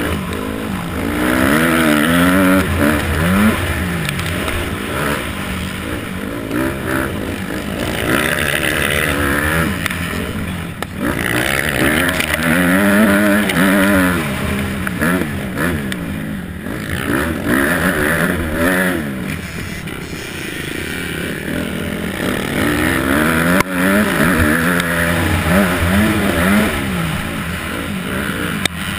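250-class motocross bike engine, heard from the rider's helmet, revving up and dropping back again and again as the rider works the throttle and shifts.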